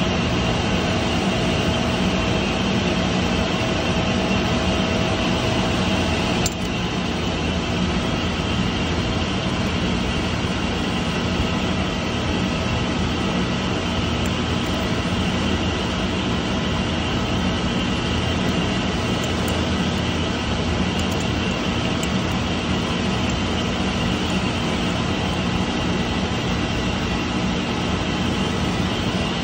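Steady loud hum of running electric-motor-driven centrifugal pumps, with steady tones over it. A single click, with a slight drop in level, about six and a half seconds in.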